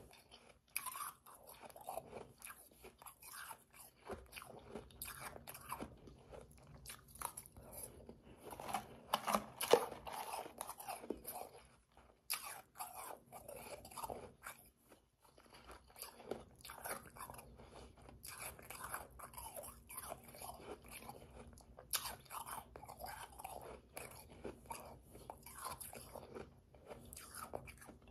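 Close-up chewing of powdery, slushy ice: a steady run of soft, irregular crunches, with the busiest, loudest crunching about nine to ten seconds in and brief lulls a little after.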